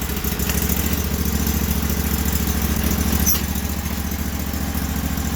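Sears garden tractor's small engine running steadily just after a key start, running nice.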